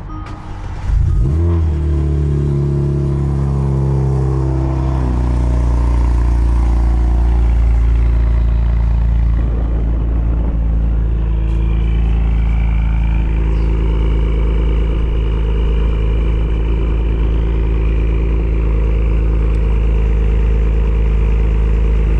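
2019 Kia Stinger's 3.3-litre twin-turbo V6 cold-starting: it cranks and catches about a second in with a brief rise in revs, then settles within a few seconds into a steady idle. The start is quiet, with no raised cold-start idle, because the ECU tune has the cold-start option switched off.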